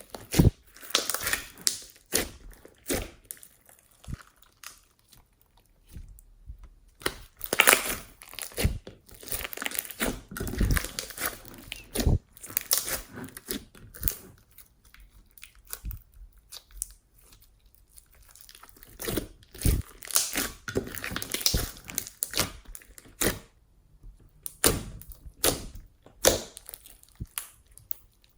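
Hands squeezing, stretching and poking slime, making irregular sticky clicks, pops and crackles with short pauses between handfuls.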